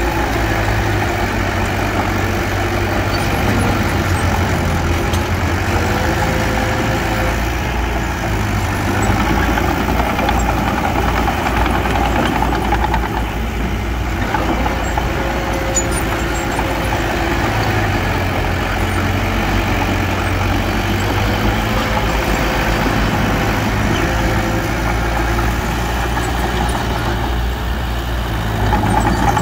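Small bulldozer's diesel engine running steadily, a low rumble with a faint whine that rises and dips a little.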